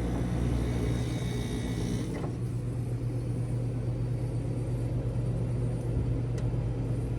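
1993 Carrier Weathermaker window air conditioner running steadily, its Tecumseh compressor and fan giving an even, really quiet hum as the compressor builds pressure after start-up.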